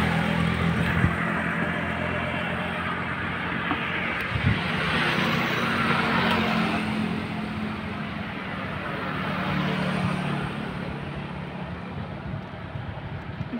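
Street traffic: motor scooter and car engines passing close by with tyre and road noise, swelling twice and fading toward the end.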